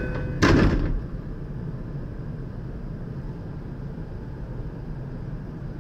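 A short loud thud about half a second in, then the steady low hum of a standing 521 series electric train.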